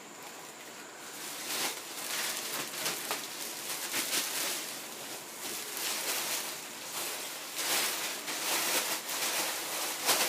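Clear plastic bag crinkling and rustling in irregular crackles as it is pulled up and off a flat-screen LCD TV.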